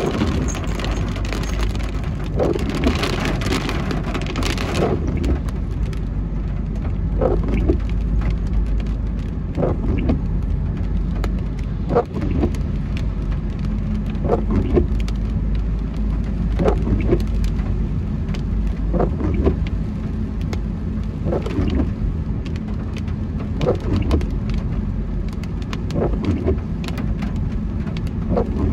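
Heavy rain falling on a moving car, with the windscreen wipers sweeping about every two and a half seconds over the steady low rumble of engine and tyres on the wet road. The rain hiss is heavier for the first few seconds, then eases.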